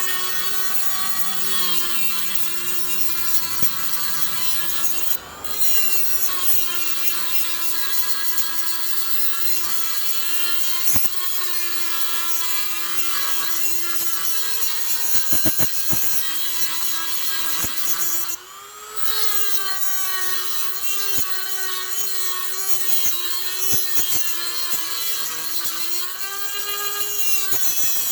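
Dremel rotary tool grinding down the head of a steel rivet on an AK receiver: a steady high whine with gritty grinding noise, its pitch wavering slightly under load, easing off briefly twice.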